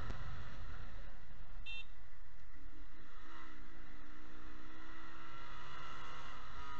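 Motorcycle riding in traffic, heard from the rider's helmet: a steady rumble of engine and wind. A short high beep comes about a second and a half in. From a little past two seconds an engine note dips and then rises slowly for about four seconds.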